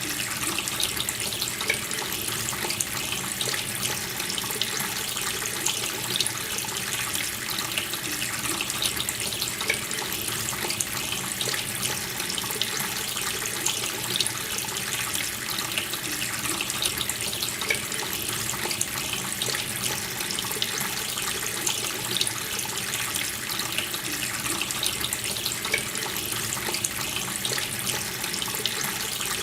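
Water running steadily from a tap, splashing into a sink with a continuous hiss.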